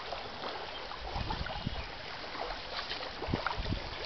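High storm winds rushing steadily, gusting and buffeting the microphone in repeated low thumps, with scattered small sharp ticks.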